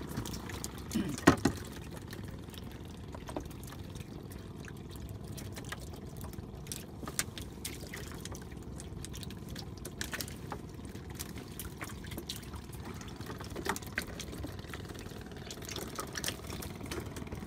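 Water splashing and dripping in a boat's fish compartments as small fish are handled and scooped out, with scattered light clicks and knocks; one sharper knock about a second in.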